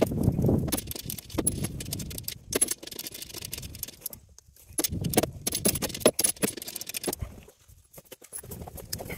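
Hand socket ratchet clicking in short runs as skid plate bolts are worked from underneath, with small metal parts jingling and scuffing on gravel, pausing briefly about four seconds in and again near the end.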